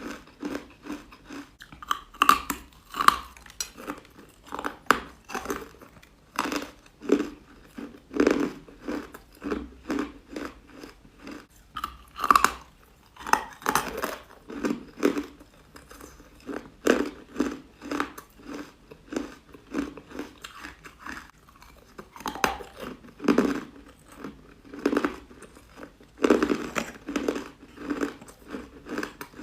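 A person chewing crunchy, chalky carbonated ice bites: a steady run of short crunches, about one or two a second.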